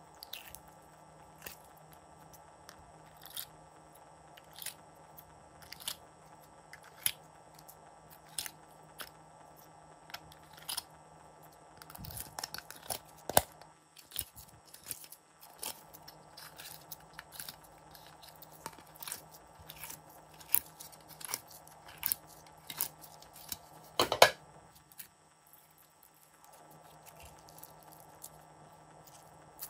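Glossy slime being pried out of the squares of a plastic compartment tray and stretched, making sticky clicks and pops, most about a second apart at first, then a denser run of crackles and the loudest crackle about 24 seconds in.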